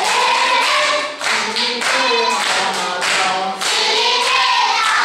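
A class of schoolchildren singing together as a group while clapping along.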